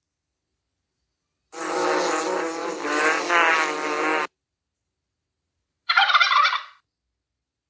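An animal call lasting about three seconds, with a fast warbling rattle in its middle, followed after a pause by a second, shorter call.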